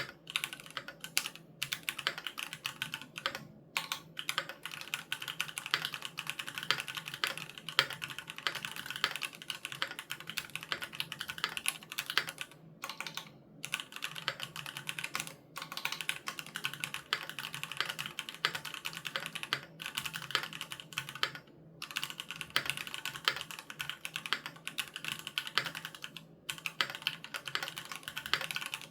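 Continuous fast typing on a Keychron Q3 mechanical keyboard with Gateron G Pro Red linear switches: a dense stream of key clicks, broken by several brief pauses.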